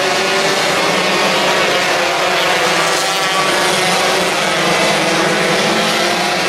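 Several 125cc micro sprint car engines running together on a dirt oval, their overlapping engine notes blending into a steady drone.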